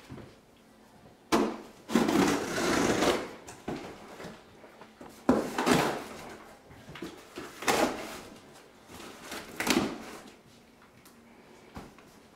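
A present being unwrapped: four bursts of tearing and rustling packaging, the first and longest about a second in, then three shorter ones a couple of seconds apart, dying away near the end.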